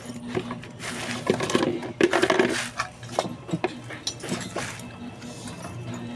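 Irregular metallic clinks, knocks and scrapes from hand work on metal parts, over a steady low hum.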